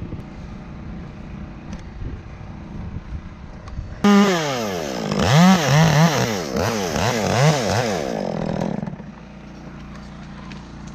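Chainsaw cutting through a limb: it starts suddenly about four seconds in, its engine pitch dipping and climbing again and again as the cut loads it, and stops after about five seconds.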